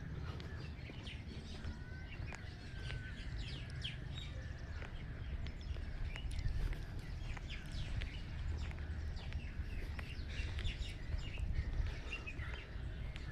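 Birds chirping in many short, quick calls, over a steady low rumble.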